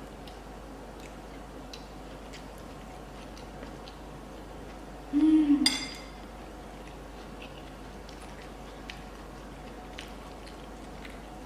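Eating at a table: faint scattered clicks of cutlery and chewing. About five seconds in there is a brief hummed "mm" and a sharp clink of a utensil on a dish.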